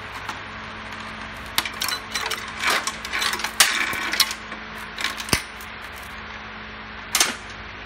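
New DID roller drive chain clinking and rattling as its links are fed around the rear sprocket, in a burst of metallic clicks through the first half and single clicks about five seconds in and near the end.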